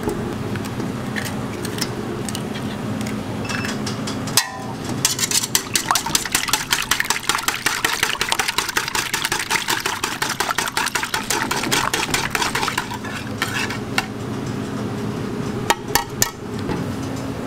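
Wire whisk beating raw eggs in a stainless steel bowl: rapid metal strokes start with a knock about four seconds in and stop about thirteen seconds in. A steady low hum runs underneath.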